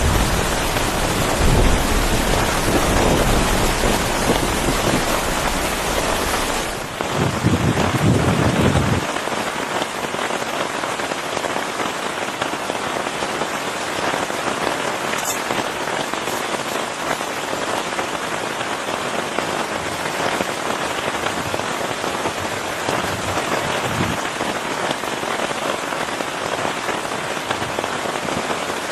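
Heavy rain falling steadily. A deep rumble runs under it for about the first nine seconds, then falls away, leaving the rain alone, with one short sharp tick about halfway through.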